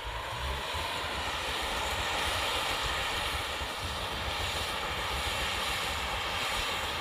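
Yanmar YH850 combine harvester working: a steady engine rumble under a busy, continuous mechanical rattle from its drive chains, which run unusually noisy. It grows a little louder over the first couple of seconds.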